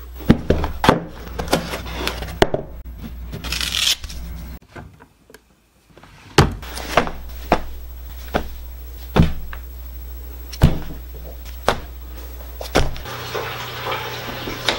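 A series of sharp knocks and thumps, roughly one every half second to second, over a low steady hum. They drop out briefly about five seconds in, and near the end a steady hiss comes in.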